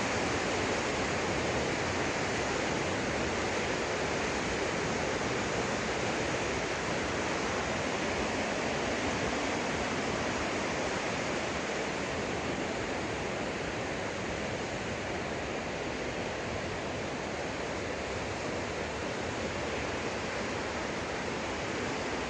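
Waterfall pouring: a steady, unbroken rushing of falling water.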